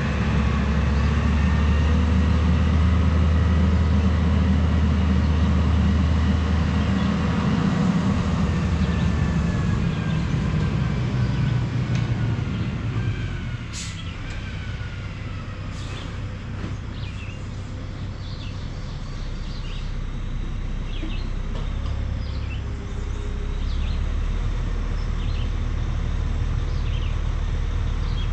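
Dump truck's engine running out of sight, loud at first with a whine that falls in pitch, then dropping to a quieter running about halfway through.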